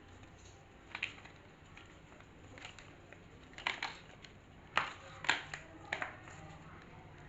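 Short rustles and clicks of packaging and small parts being handled while a smartwatch is unboxed, about six separate sounds, louder in the second half.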